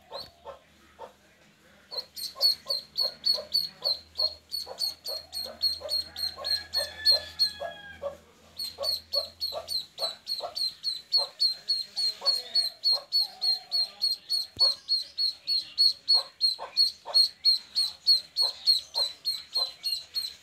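Duckling peeping, a steady run of short high-pitched peeps at about three a second, starting about two seconds in.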